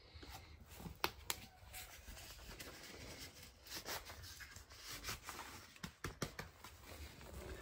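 Handling noise: scattered sharp clicks and knocks with scratchy rustling between them, from work with tools and materials in a small room.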